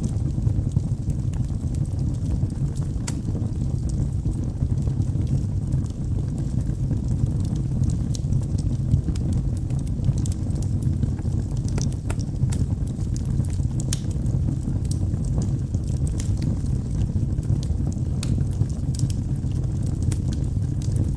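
Wood fire burning in a fireplace, a steady low rumble of flames with frequent small crackles and pops scattered irregularly.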